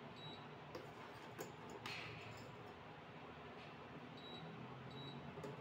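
Lemon squash syrup simmering in a small steel saucepan, its last boil before it is done: faint bubbling with a few light ticks, over a steady low hum.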